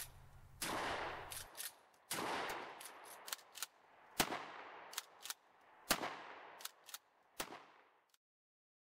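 Franchi SAS 12 pump-action 12-gauge shotgun firing about five shots, one every one and a half to two seconds, each trailing off in a long echo. Between shots the pump is cycled, with sharp clacks of the slide.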